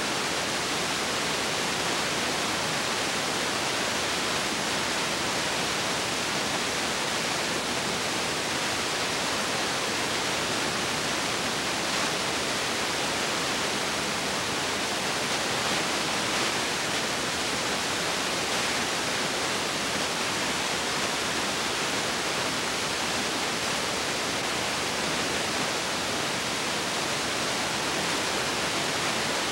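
Steady, even hiss with no distinct sounds in it: the noise floor of an old silent film's transfer, not sound from the scene.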